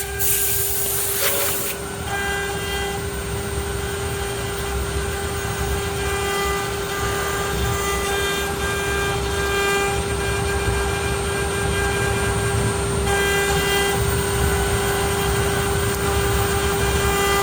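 ART1325 CNC router running: the spindle gives a steady high whine, with stepper-motor tones above it that come and go as the axes move, over a low rumble. A short hiss sounds at the start.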